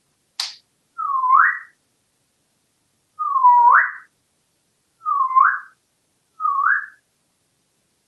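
African grey parrot whistling four times, each whistle a short note that dips slightly and then sweeps sharply upward, the second the longest and loudest. A brief sharp sound comes about half a second in, before the first whistle.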